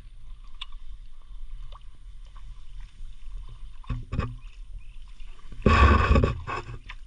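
Light clicks and a knock, then a brief loud splash in water about six seconds in, with a few smaller splashes after it.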